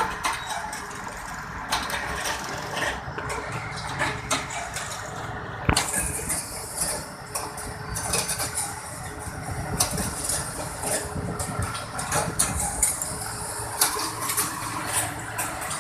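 Heavy track-laying machine's diesel engine running steadily, with frequent metallic clanks and knocks from the machinery at work, one sharp knock about six seconds in.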